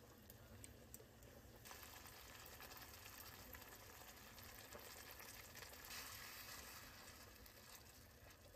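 Faint sizzling of tomato sauce and milk in a hot stainless steel frying pan, growing louder about two seconds in and easing near the end, with light clicks of a wooden spatula stirring.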